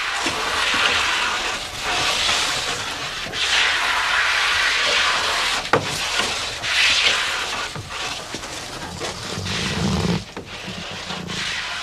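Hand tool rasping along a wooden boat plank in long uneven strokes of a second or two each, with a sharp knock about halfway through.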